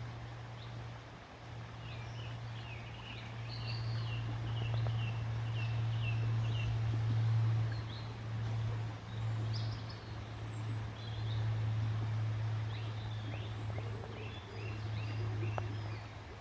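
Small birds chirping in quick runs of short high notes, in two spells, over a steady low rumble that is the loudest sound throughout.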